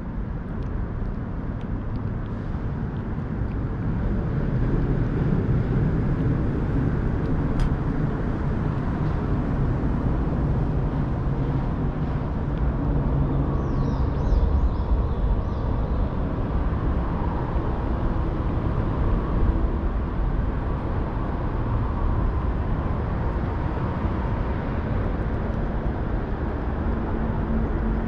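Steady low rumble of motor traffic, growing louder about four seconds in and staying up. A bird chirps briefly about halfway through.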